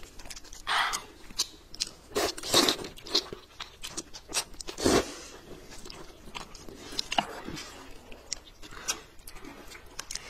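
Close eating sounds: irregular crisp crunching bites and chewing of a peeled bamboo shoot, mixed with slurps of noodles, the loudest crunches about two and a half and five seconds in.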